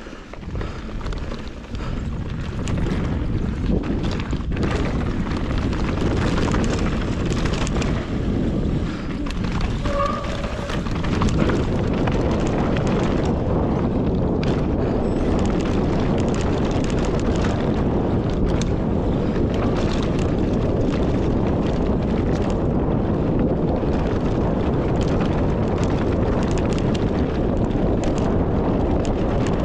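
Steady rush of wind over the microphone, with rumble from the trail, during a fast downhill run. It builds over the first couple of seconds and grows louder again about a third of the way in, with a brief squeak just before.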